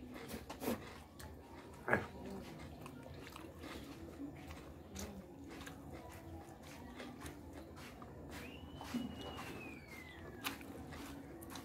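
Close-miked hand-eating of rice and fish: wet mouth clicks, lip smacks and chewing, the sharpest click about two seconds in. Near the end a single high whistling note slides slowly downward for about two seconds.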